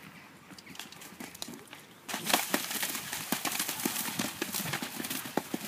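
Horse cantering, its hoofbeats faint at first; about two seconds in it enters shallow water and its hooves splash through it in a quick, continuous run of splashes.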